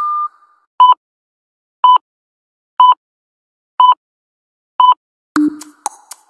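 Electronic workout-timer beeps counting down a rest break. A short steady tone at the start is followed by five short beeps about a second apart with silence between them. A lower, longer tone about five seconds in signals the next exercise, and a light percussive beat of music resumes after it.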